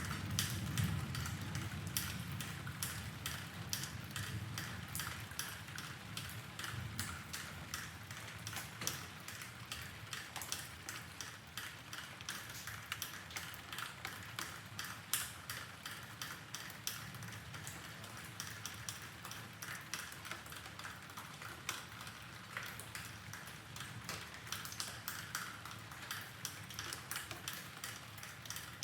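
Rain dripping, with many irregular drops tapping over a steady patter. A low rumble of distant thunder fades out in the first second or so.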